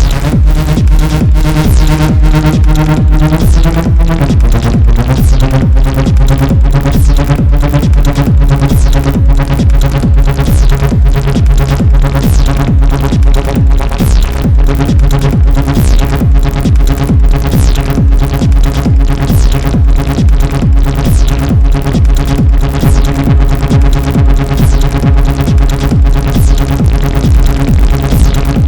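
Acid techno played live on hardware synthesizers and a groovebox (Novation Circuit Tracks, Behringer Crave, Korg microKORG): a steady, driving electronic beat under synth bass and lead lines. The bass notes change pitch about four seconds in.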